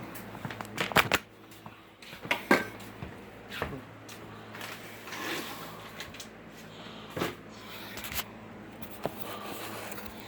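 A handful of sharp knocks and clacks at irregular intervals, with softer rustling and scraping between them, typical of things being handled and moved about during floor cleaning. The two loudest knocks come about a second in and about two and a half seconds in.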